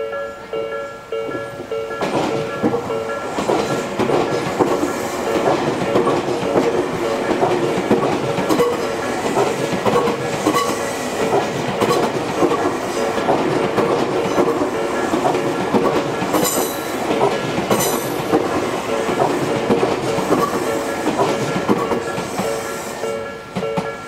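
Electric commuter train passing through a level crossing, its wheels clattering over the rail joints for about twenty seconds, with a brief high squeal about two-thirds of the way through. The crossing's warning bell rings steadily at the start and comes through clearly again as the train clears near the end.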